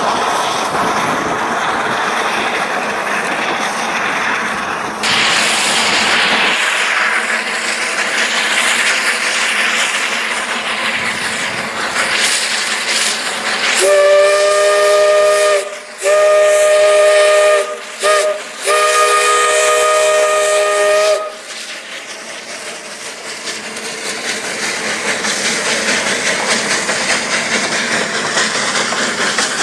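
Steam whistle of Cripple Creek & Victor narrow-gauge locomotive No. 2 sounding the grade-crossing signal: two long blasts, one short and one long, each a chord of several notes. Around it is a steady noise, and near the end the locomotive's running sound grows as the train comes closer.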